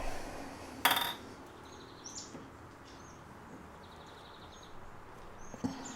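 A bird calling over and over: short high rising chirps alternating with buzzy trills. About a second in there is a brief loud rush of noise, and near the end a soft knock.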